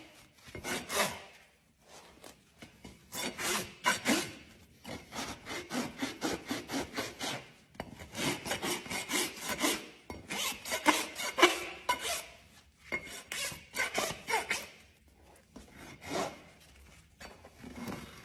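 Farrier's rasp filing a horse's hoof in runs of quick scraping strokes, several a second, with short pauses between runs.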